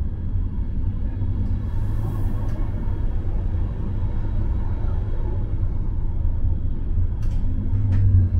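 Tram running, heard on board as a steady low rumble, with a couple of brief clicks near the end.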